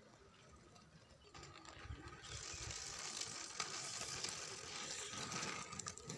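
Inline skate wheels rolling on an asphalt road: a gritty hiss with small clicks that grows louder over the first two seconds and holds as the skater comes close.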